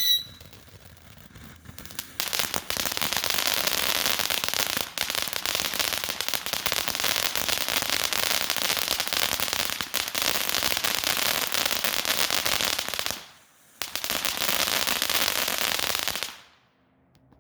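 World Class Fireworks 'Beach Party' firework fountain spraying with a dense hiss and rapid crackling. It picks up strongly about two seconds in, cuts out for half a second near the end, then flares once more and burns out.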